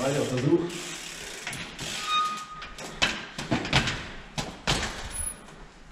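Trials bike hopping up concrete steps: a run of sharp knocks and thuds as the tyres and bike land on the step edges, most of them in the second half.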